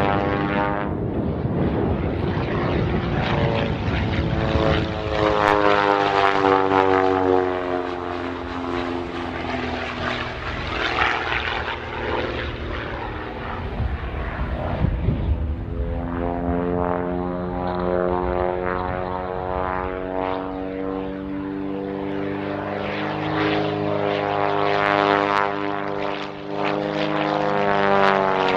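Pitts Special aerobatic biplane's piston engine and propeller droning through a display routine. The pitch sinks slowly from about four to ten seconds in, holds, then rises and falls again near the end as the plane climbs, dives and passes.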